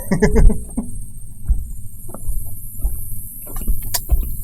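Footsteps of a person walking on a trail, a soft thump and rustle every half second or so, after a few words spoken at the start.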